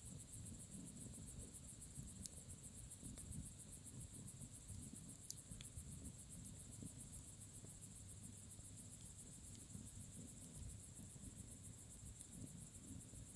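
Crickets chirping in a fast, even pulse over the faint low rumble of a bonfire, with a few sharp crackles from the burning wood.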